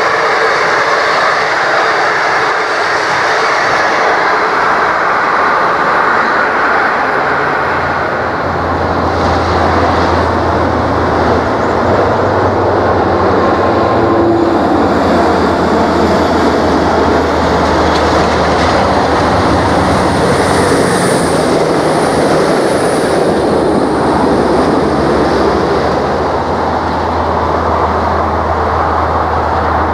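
Diesel passenger trains running past on the rails, with a steady noise of wheels and running gear. A steady low engine drone sets in about eight seconds in and holds to the end.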